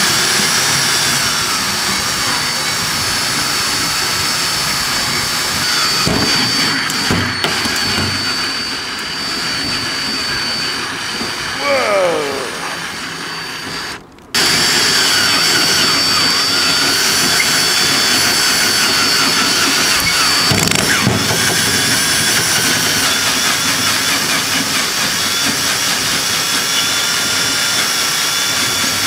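Electric power drill running hard as its bit bores into the metal top of a microwave oven, a steady loud grinding with a high motor whine. About halfway there is a short falling squeal, and the noise breaks off for a moment, then runs on as before.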